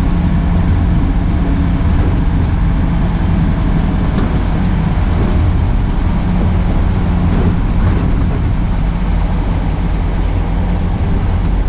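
Semi truck's engine and road noise heard from inside the cab while driving: a steady low rumble.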